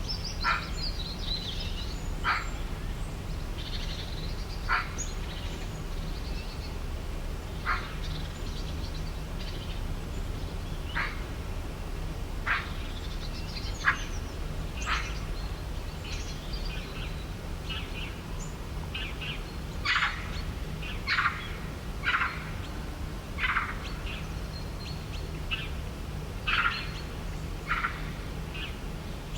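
Birds chirping in short, sharp calls every second or two, the calls coming closer together in the second half, over a steady low background rumble.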